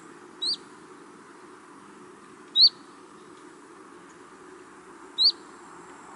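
A bird giving three short, sharp chirps a couple of seconds apart, over a steady outdoor hush.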